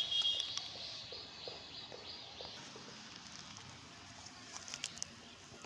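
A bird's short, high call right at the start, over quiet open-field ambience, with a few light ticks and rustles near the end.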